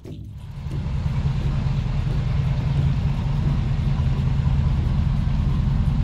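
Chevrolet LS2 6.0-litre V8 in a 1940 Ford coupe restomod idling with a steady low exhaust rumble. The sound fades in over the first second.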